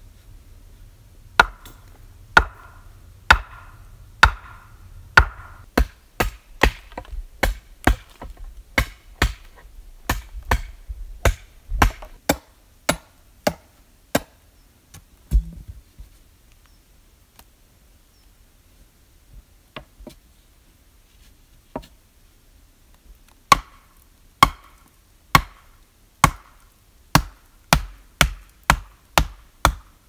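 Wood being chopped with an axe: a run of sharp blows, about one a second and then quicker, a pause of several seconds broken by a couple of faint knocks, then another steady run of blows.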